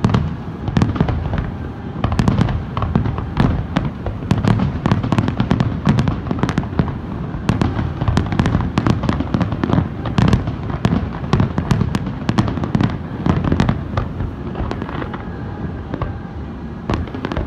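A big fireworks display: a dense, continuous barrage of shell bursts, many sharp cracks a second over a steady low rumble, thinning a little near the end.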